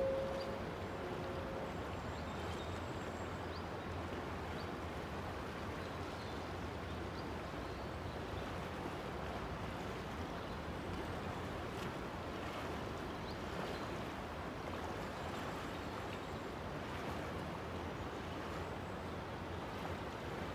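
A fast-flowing river making a steady, even rush of moving water.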